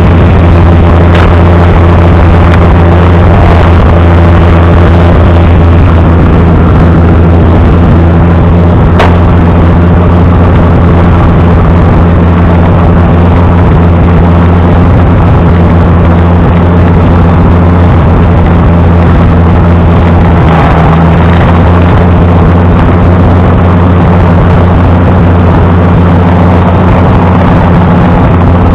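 An engine running steadily and loud at a constant speed, with a deep even hum that does not change.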